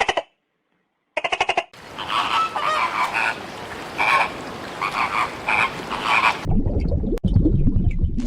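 Frogs croaking: two short, rapid pulsed calls in the first two seconds, then a chorus of overlapping calls repeating every half second or so. About six and a half seconds in, this gives way to a loud, low rumbling noise.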